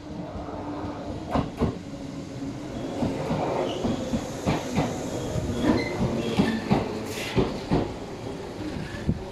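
Tobu 10000 series electric train pulling into the platform: wheels clacking repeatedly over the rail joints over a steady running rumble, getting louder as the cars draw alongside, with short high-pitched squeals from the wheels.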